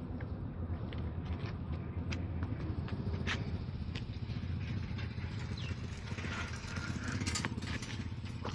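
A steady low engine rumble, with scattered light clicks and taps over it.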